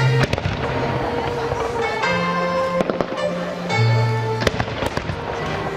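Fireworks bursting, several sharp bangs at irregular intervals, over loud music from the pyromusical's soundtrack.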